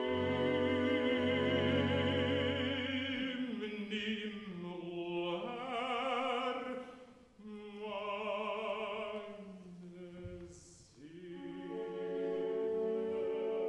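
Baritone voice singing a slow oratorio aria with wide vibrato over orchestral accompaniment, with the strings sustaining underneath. Near the end the orchestra holds a chord.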